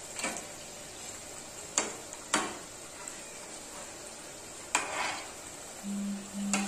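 Sooji litti balls deep-frying in hot oil, a steady sizzle, with a slotted spatula knocking and scraping against the pan about five times as the balls are turned.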